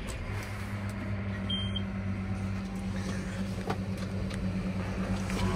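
Tractor's diesel engine just started and running at a steady idle, heard from inside the cab, with one short high beep about a second and a half in.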